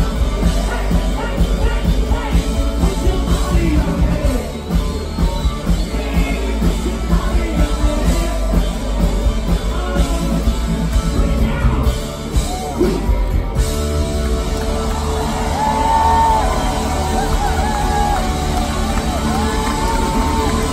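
Live rock band playing loudly, with drums, electric guitars and a male lead singer, heard from within the crowd. About two-thirds of the way through the drumming stops and held chords carry on under sliding sung notes.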